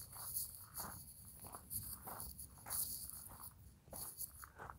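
Footsteps crunching on dry gravelly ground, a few steps a second, over a steady high chirring of insects.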